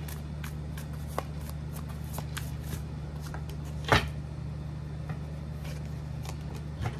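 A deck of tarot cards being shuffled by hand, a quick run of soft card slaps and flicks, then one louder tap about four seconds in. A steady low hum runs underneath.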